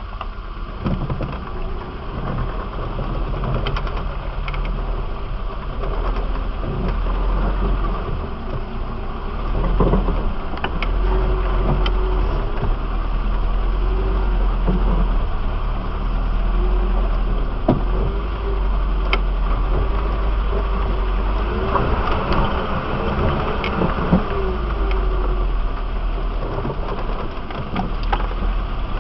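Off-road 4x4's engine running at low speed as it crawls over a rough, muddy track. The engine note rises and falls now and then, with occasional sharp knocks and rattles from the vehicle jolting over ruts.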